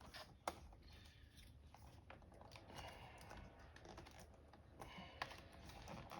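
Faint, scattered plastic clicks and taps from a replacement laptop keyboard being pressed and lined up in a Dell Latitude E7440's chassis, with a sharper click about half a second in.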